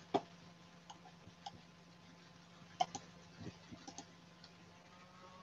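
Faint, scattered computer mouse clicks, a few single clicks and a short cluster a little before the middle, over a low steady hum.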